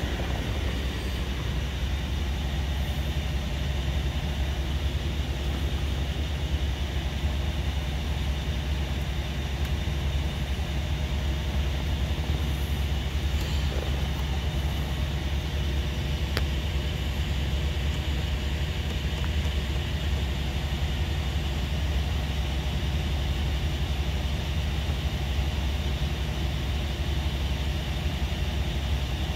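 Steady low rumble with an even hiss inside a Rolls-Royce Ghost's cabin, the car switched on and running, with a single faint click about 16 seconds in.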